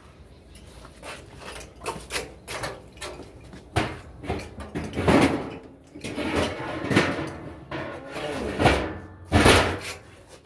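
Irregular metallic clanks and knocks from scrap parts of an air-conditioner condenser being handled and set down, some ringing briefly. The loudest knocks come about halfway through and just before the end.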